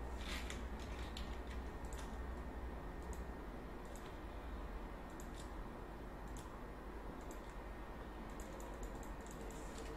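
Scattered, irregular clicks of a computer mouse and keyboard as a Photoshop edit is made, over a steady low hum.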